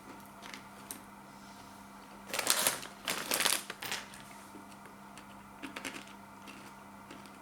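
Crunching of Takis rolled corn tortilla chips being chewed: two loud bursts of crunching about two and a half to four seconds in, then a few smaller crunches and scattered clicks.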